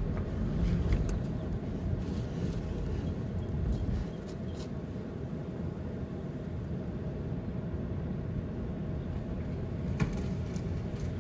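Steady low rumble of a car heard from inside the cabin as it creeps forward and then nearly stops, with a few light clicks and knocks.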